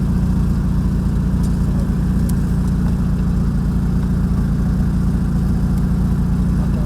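A car engine running steadily, a low, even rumble with no change in pitch.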